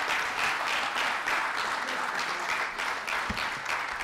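Congregation applauding steadily, many hands clapping at once, with a brief low thump about three seconds in.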